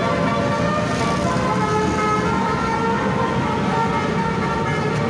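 Indonesian 'telolet' multi-tone bus horn sounding several notes at once in a sustained chord, the notes changing a few times.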